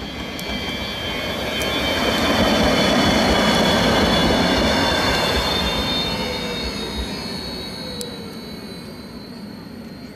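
EVO2 low-floor tram passing close on street track: a rolling rumble on the rails that swells to a peak a couple of seconds in and fades as it moves away, with high whining tones from the wheels and drive that slide down in pitch.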